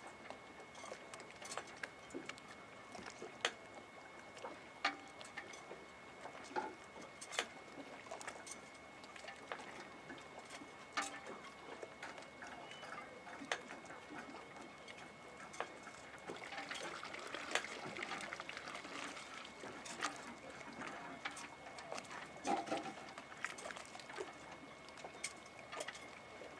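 Quiet anchorage ambience: small water sounds lapping and trickling at a moored boat's hull, with scattered sharp clicks and light knocks at irregular intervals.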